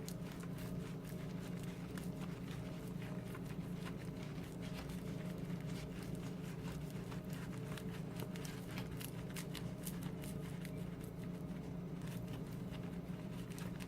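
Dried loofah gourd being worked by hand to get its seeds out: scattered small clicks and crackles from the dry fibres and loose seeds, over a steady low hum.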